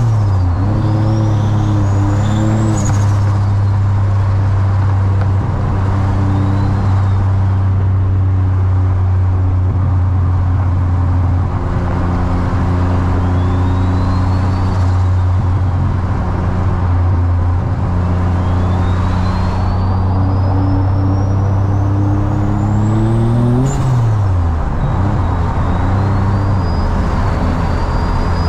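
Turbocharged VQ35DE V6 of an Infiniti G35 coupe droning at steady revs, heard from inside the cabin, with the turbo's whistle rising again and again as it spools up. About 24 seconds in the engine note climbs and then drops abruptly, the whistle cutting off with a short sharp sound.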